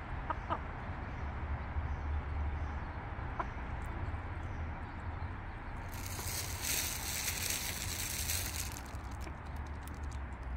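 Barred hens pecking feed from the dirt, with a few faint short peeps and soft pecks over a steady low rumble of wind on the microphone. A hissing rush comes in about six seconds in and lasts about three seconds, followed by a run of light clicks.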